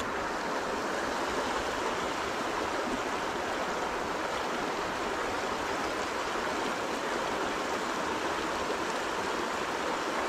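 River water rushing over shallow rapids: a steady, even rush of flowing water.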